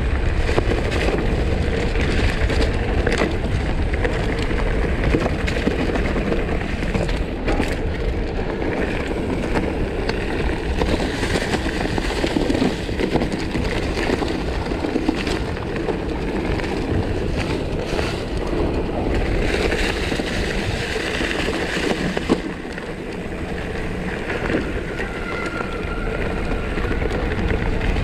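Mountain bike riding a dirt trail: steady tyre rumble with frequent clicks and rattles from the bike, and wind noise on the action camera's microphone.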